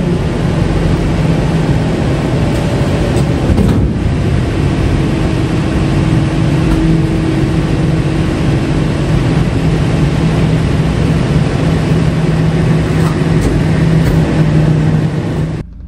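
Bin lorry's rear compaction mechanism running a packing cycle: the hydraulic sweep plate moves through the hopper over a loud, steady hum from the running engine and hydraulic pump. A higher steady tone joins for a few seconds about five seconds in, and the sound cuts off abruptly near the end.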